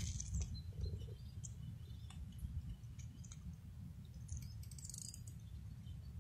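Faint outdoor ambience: a steady low rumble with scattered small clicks and a few brief high chirps, a short cluster of them about four and a half seconds in.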